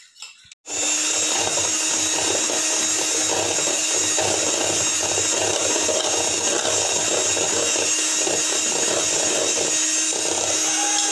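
Electric hand mixer running at a steady speed, its twin beaters whisking eggs and powdered sugar in a stainless steel bowl. It starts under a second in.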